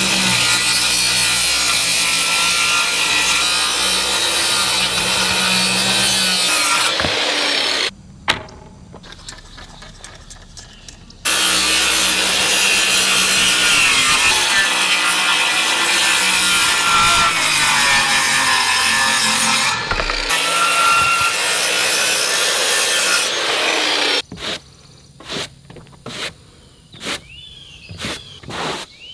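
Corded circular saw cutting across rough-sawn wooden floor boards, its motor pitch wavering under load, in two long cuts with a short quieter pause between them about a third of the way in. Near the end a push broom sweeps the wooden deck in short strokes about twice a second.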